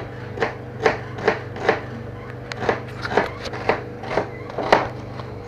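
A run of soft, evenly spaced knocks, about two a second with a short break partway through, over a steady low hum.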